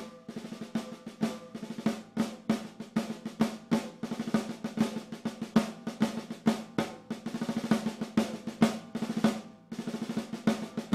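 Sonor Select Force 14x6.5 snare drum with wooden hoops played with sticks: a dense run of rapid strokes and rolls, each with a clear pitched ring. The playing breaks off briefly near the end, then resumes.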